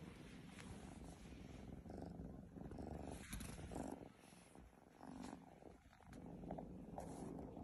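An Oriental Shorthair kitten purring, faint and steady, with a couple of brief dips.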